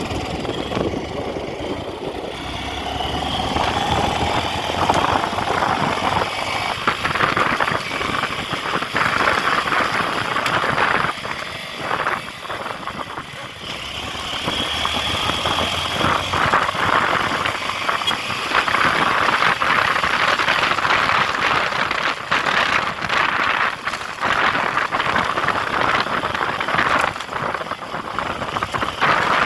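Motor vehicle engine running steadily, with rattling.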